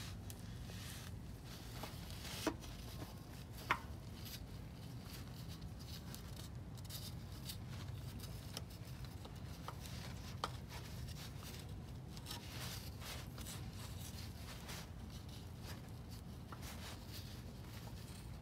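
Faint handling noise of a spin-on oil filter being pushed and turned by a gloved hand onto its mount under the engine: rubbing and rustling, with three short clicks, over a steady low hum.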